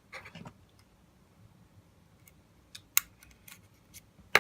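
Small scratches and clicks of handling iPhones to eject their SIM trays: a brief rustle at the start, then two sharp clicks about a second and a half apart, the second the loudest.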